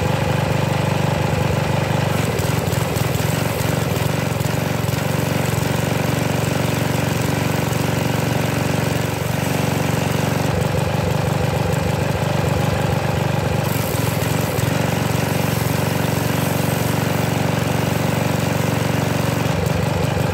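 Briggs & Stratton 190cc single-cylinder engine on a pressure washer running steadily at lowered RPM with some choke on, a little shaky. The owner blames the rough running on a defective HIPA aftermarket carburetor.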